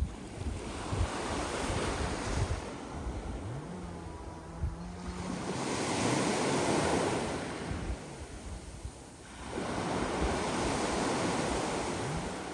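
Sea waves washing up a beach of sand and small pebbles, the surf swelling and ebbing in about three slow surges, with wind buffeting the microphone.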